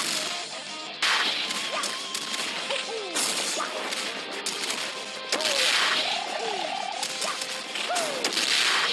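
Cartoon fight sound effects: a string of sudden hits and crashes with whooshing swipes, and short falling pitched blips between them.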